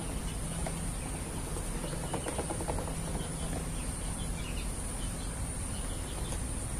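Insects chirring with a steady high-pitched tone, over an even outdoor background with a low hum underneath.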